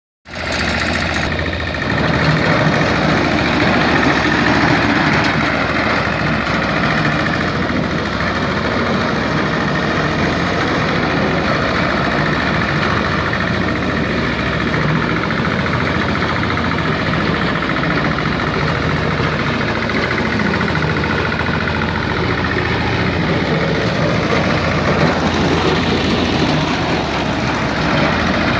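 Single-cylinder 5 hp diesel engine of a roller-type cylinder lawn mower running steadily as the mower is pushed across the lawn.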